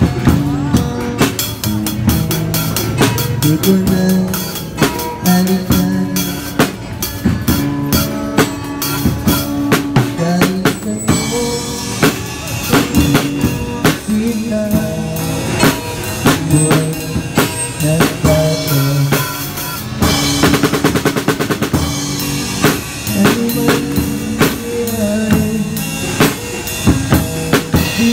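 Drum kit played live with a driving beat on bass drum, snare and Sabian cymbals, accompanied by a guitar through a small portable amplifier. A cymbal crash rings out about eleven seconds in, and a fast drum roll comes about twenty seconds in.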